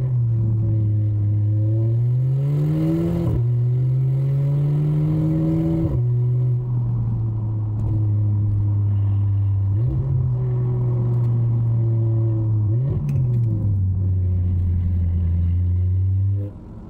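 Car engine heard from inside the cabin under way, its note climbing with the revs and then dropping sharply at gear changes, several times over. The engine note falls away suddenly near the end.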